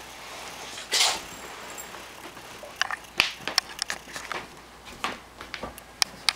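A cat sneezing. One sharp sneeze about a second in is followed by an irregular run of short, sharp sneezes and snorts over the last few seconds.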